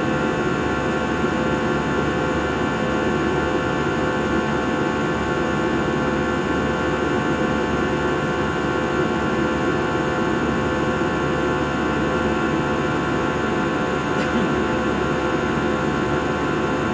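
Steady cabin noise of an airliner in flight: a constant rush of engine and air noise with a fixed, unchanging hum of engine tones, heard from inside the passenger cabin.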